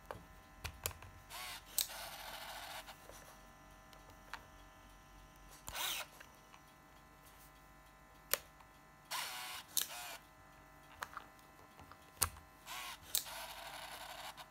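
Olympus Superzoom 120 compact film camera being worked by hand: sharp clicks of its buttons and body, and several short whirs of its built-in motor, each lasting a second or so.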